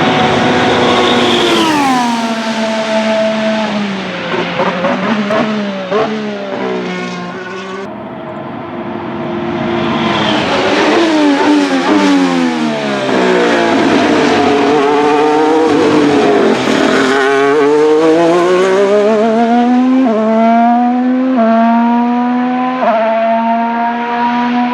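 Formula 1 car's turbocharged V6 engine at speed. Its pitch drops sharply about two seconds in, sweeps down and back up through the middle, then climbs through a run of quick gear changes near the end.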